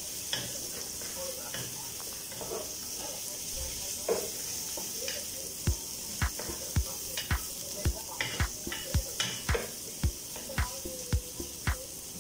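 Chopped onion and garlic sizzling steadily in hot oil in a pot, stirred with a wooden spoon that scrapes the pot now and then. About halfway through, background music with a steady low beat, about two thumps a second, comes in under the sizzle.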